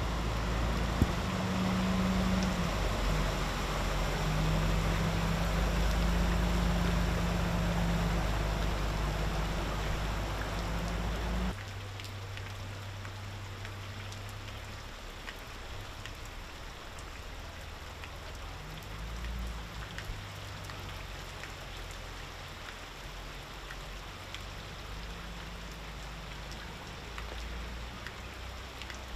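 Heavy rain pouring down onto floodwater and hard surfaces: a steady hiss with scattered raindrop ticks. A low hum runs under it at first, and the whole sound steps down abruptly to a quieter level about eleven seconds in.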